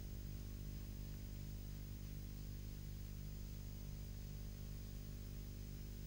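Steady low electrical hum with a faint hiss: the background noise of the recording, with no other sound standing out.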